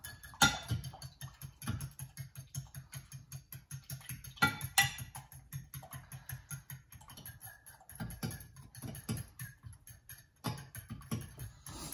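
Eggs being beaten by hand in a glass bowl, the utensil clicking against the glass in a quick, steady rhythm of several strokes a second, with a few sharper knocks along the way.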